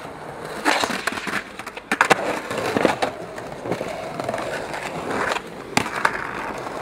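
Skateboard wheels rolling over stone paving, with several sharp clacks of the board popping and slapping down on the ground.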